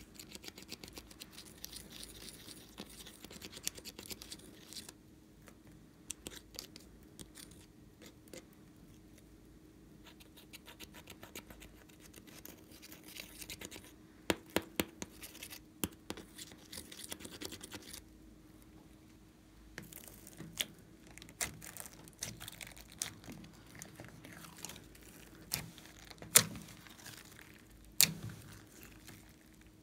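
A small metal tool scraping pressed eyeshadow powder out of the palette pans, a fine rapid scratching in spells with scattered clicks. In the last part, sharp sticky clicks and pops as foamy slime is worked by hand.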